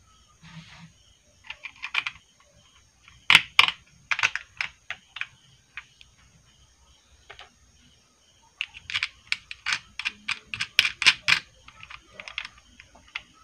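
Quick runs of small metal clicks and taps as the breaker contact strip (platino) and its lock nut are handled and adjusted on a homemade fish-stunner coil, in three or four bursts with short pauses between.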